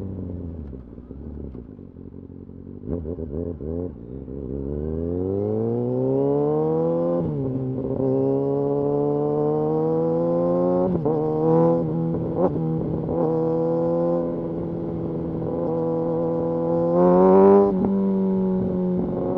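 Kawasaki Ninja ZX-6R inline-four sportbike engine, heard from the rider's seat. It winds down on deceleration, with a few sharp crackles at low revs, then pulls up through the revs into an upshift about seven seconds in. After that it runs fairly steadily with small changes in revs and a short rise near the end.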